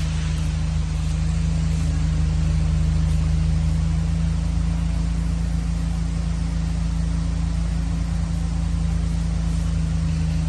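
Toyota Camry engine idling steadily: a low, even hum.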